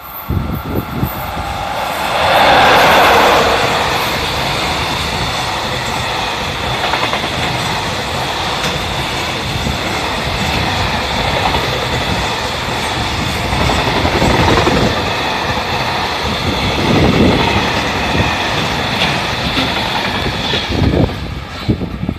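EF66 electric locomotive hauling a JR Freight container train through a station, loudest about three seconds in as the locomotive goes by. Then a long steady rumble and clatter of wagon wheels over the rail joints, dropping away near the end as the train moves off.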